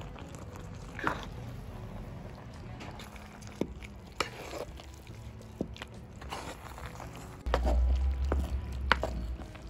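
A ladle stirring thick jackfruit curry in a clay pot, with soft wet squelches and scattered scrapes and knocks against the pot. A low rumble starts near the end and is louder than the stirring.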